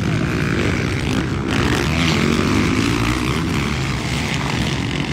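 Motocross bike engines running loud as the riders race past on the dirt track, with several engines overlapping.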